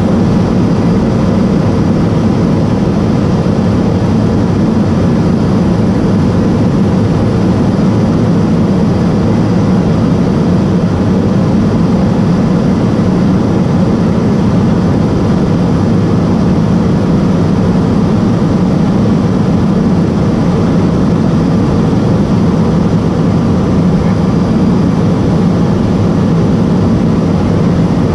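Steady in-flight cabin noise of a Cessna P210 Silver Eagle: its Rolls-Royce 250 turboprop engine and propeller running at constant power, with airflow over the cabin. It is a loud, even, low drone with no change in pitch.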